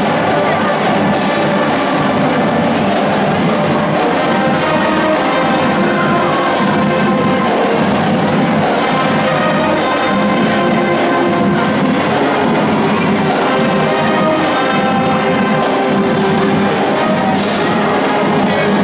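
Marching band playing a tune: trumpets, trombones and sousaphones over a drumline of snare and bass drums, with a bright crash near the end.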